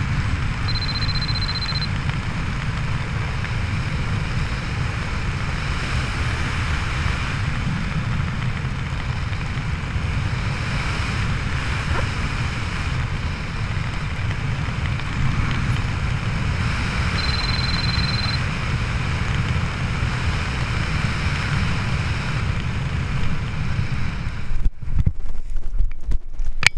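Wind rushing over the microphone during a tandem parachute jump, a steady low roar with a short high beep twice. Near the end the rush breaks into uneven, choppy gusts.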